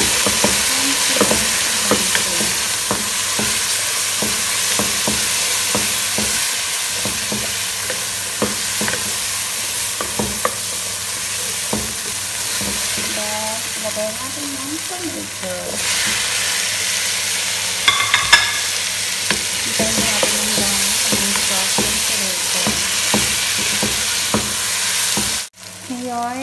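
Diced onion and tomato sizzling in hot oil in a nonstick pot, stirred with a wooden spoon that scrapes and knocks against the pan.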